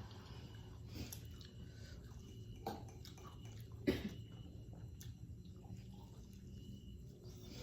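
Close-miked eating of fried noodles and crispy fried chicken: chewing, with a few short sharp bites, the loudest about four seconds in, over a low steady hum.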